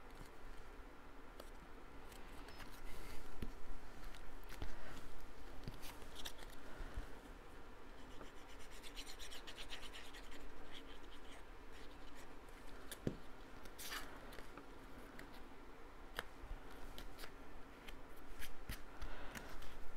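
Cardstock pieces being handled, rubbed and pressed together by hand: soft paper rustling and scratching with a few light taps and clicks.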